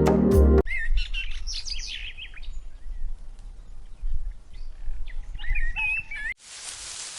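Wild birds chirping and whistling in two short bouts over a faint low rumble, after a burst of music that cuts off under a second in. Near the end the sound cuts abruptly to a steady hiss.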